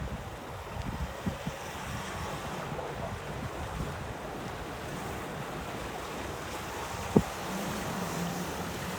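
Steady rush of wind on the microphone mixed with flowing creek water, with one sharp knock about seven seconds in.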